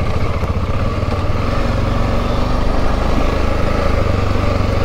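Dirt bike engine running steadily under way on a dirt track, heard close from the rider's helmet.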